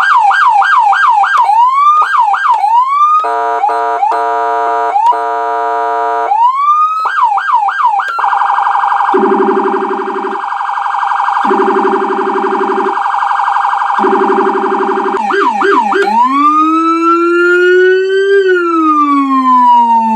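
Federal Signal electronic vehicle siren cycling through its tones: quick repeated yelps, a chopped stepping tone, then a long steady buzzy horn tone with a lower tone cutting in and out about three times. Near the end it changes to a slow wail that rises and then falls, with a second, lower wail under it.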